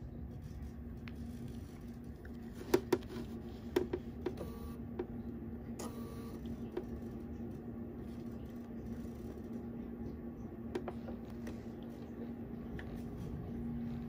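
Handling sounds at a computerised sewing machine as a folded leather strap is set under the presser foot: a few sharp clicks and taps, the loudest a cluster about three to four seconds in, over a steady low hum. Two short beeps come about five and six seconds in. No stitching is heard.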